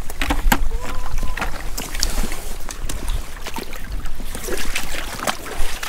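Wind buffeting the microphone on an open shoreline, with small water lapping at the rocks and scattered light clicks and knocks.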